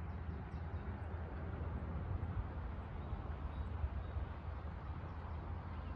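Wind buffeting the microphone: a steady, fluctuating low rumble with a thinner hiss above it and no distinct events.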